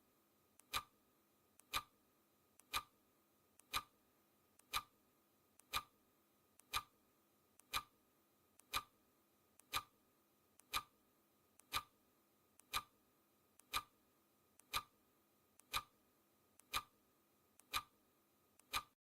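Clock ticking sound effect: one sharp, short tick every second, evenly spaced.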